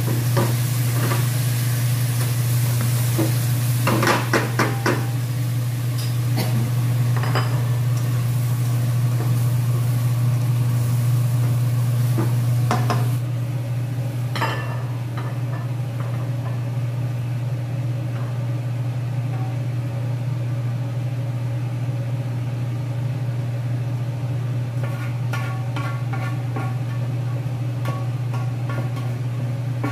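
Green bitter melon stir-fry sizzling in a nonstick frying pan while a spatula stirs and knocks against it. The sizzle cuts off suddenly about halfway through. Near the end the spatula scrapes the pan as the stir-fry is tipped out onto a plate, over a steady low hum.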